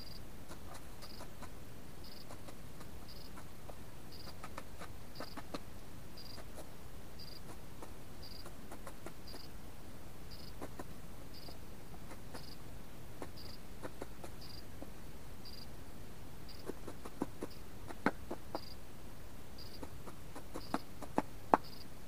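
Sharp taps and pecks in the last few seconds, a pheasant feeding at a winter feeding spot. Throughout, a faint high peep repeats evenly about once a second.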